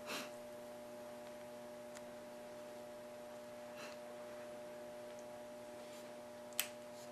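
Steady electrical hum, with a few faint clicks of a Smith & Wesson M&P's plastic trigger and trigger bar handled between the fingers. The sharpest click comes near the end.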